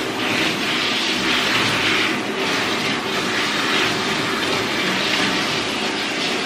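Water spraying from a handheld hose nozzle onto a wet dog's coat and into a stainless steel tub: a steady hiss that swells and eases as the spray moves.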